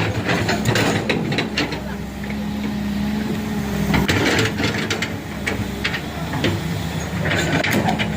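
A heavy vehicle's engine running steadily at low revs, with scattered knocks and clatter and voices calling out now and then.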